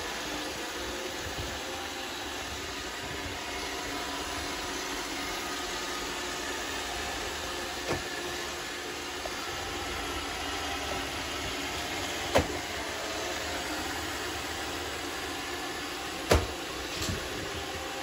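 iRobot Roomba 677 robot vacuum running steadily as it cleans a hard floor, with three sharp knocks about eight, twelve and sixteen seconds in.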